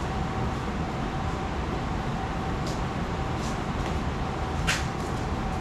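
Small air compressor running steadily, a constant hum with a noisy hiss under it, and a few light clicks of handling partway through.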